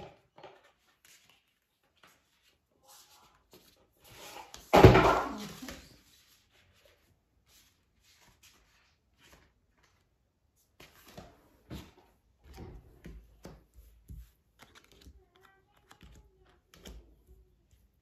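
Photocards being laid out and moved about on a table by hand: scattered faint clicks and taps, with one loud thump about five seconds in that dies away over about a second.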